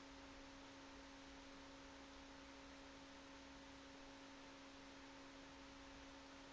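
Near silence: a faint, steady electrical hum and hiss of room tone picked up by a webcam microphone.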